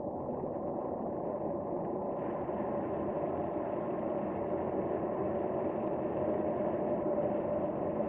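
Car's engine and tyre noise heard from inside the cabin while driving slowly: a steady low hum that holds even throughout.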